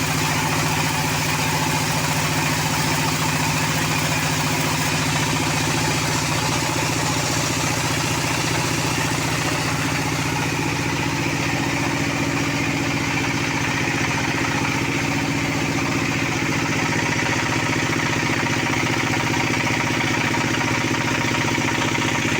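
Band sawmill's engine running steadily at a constant speed.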